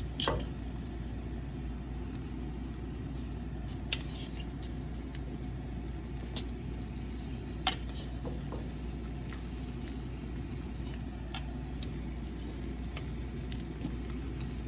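A frying pan of egg cooking on a gas stove over low heat: a steady low rumble, with a handful of short sharp clicks scattered through it.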